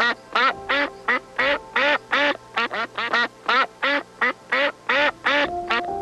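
Duck quacking in a rapid, even run of short, loud quacks, about three or four a second, over steady background music.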